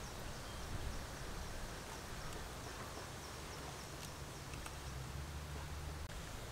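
Faint rural outdoor ambience: a small high chirp repeats about three times a second, over a low rumble and a steady hiss.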